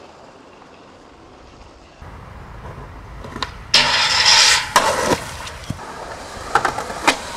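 Skateboard wheels rolling on pavement, then a loud grind for about a second as the board slides down a stair handrail, followed by two sharp clacks of the board landing. Two more sharp board clacks come near the end.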